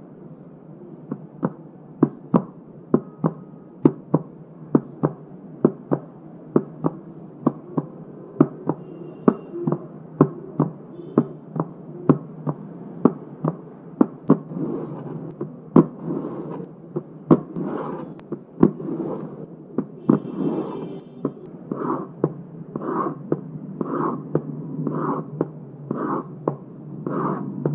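Cardboard tapped in a steady run of sharp taps, about two a second, imitating the lub-dub of heart sounds. From about halfway, a rushing, scraping noise fills the gaps between the taps and swells about once a second, imitating a heart murmur.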